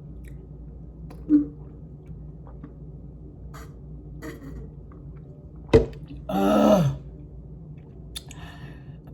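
A woman burping: one loud burp about two-thirds of the way through, half a second long and falling in pitch, with a smaller throaty sound early on. A sharp click comes just before the big burp.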